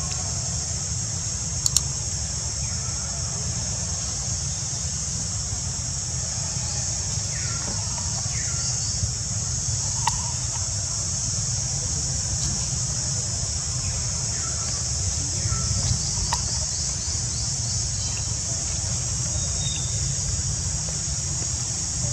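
Steady high-pitched drone of an insect chorus over a low steady rumble, broken by a few sharp clicks and faint short chirps.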